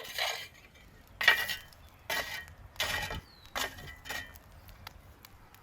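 Metal skewer being turned on its welded metal support over a fire, creaking and clinking in about six short strokes, some with a faint squeal.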